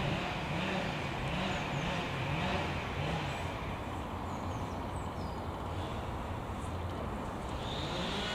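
Steady hum of motor traffic with an engine note that wavers up and down, and a vehicle rising in pitch near the end; a few faint high bird chirps in the first half.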